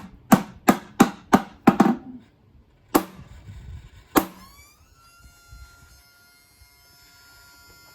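Sharp blows struck on a Macintosh 512K computer: six in quick succession, about three a second, then two more spaced about a second apart. After the last blow a whine rises in pitch and settles into a steady tone, as a motor in the machine starts up.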